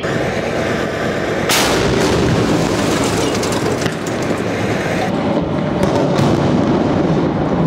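Combat sounds of artillery and gunfire. A loud blast about a second and a half in sits over a continuous rumble, and a quick run of sharp cracks follows around five to six seconds in.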